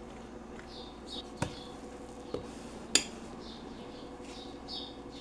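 Three sharp knocks of kitchen utensils, the loudest about three seconds in, over repeated short high chirps of small birds.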